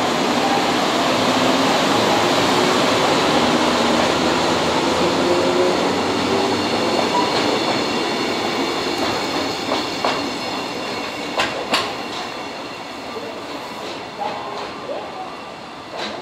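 EF65 electric locomotive and two flat wagons loaded with rail rolling past and away, the running noise fading steadily. A thin high wheel squeal comes in partway through, and a few sharp clacks follow as the wheels cross rail joints near the end.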